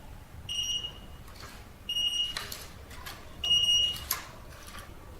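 Built-in buzzer of a touch keypad access controller beeping as it is programmed: three steady high-pitched beeps, each about half a second long and roughly a second and a half apart.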